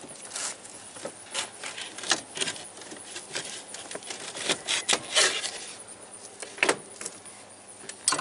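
Irregular clicks, knocks and rustles of someone climbing into a truck cab and shifting a wooden board on the floor by the pedals.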